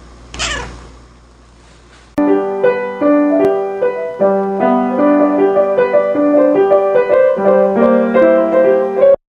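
Piano music: a quick run of notes over a held low note, starting about two seconds in and cutting off abruptly just before the end. At the start, a brief sound falling in pitch.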